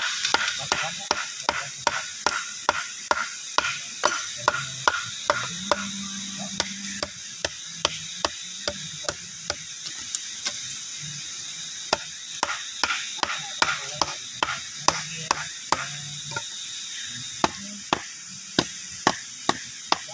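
A machete chopping and splitting a bamboo stalk in quick repeated blows, about two to three sharp strikes a second, with a short pause about halfway through.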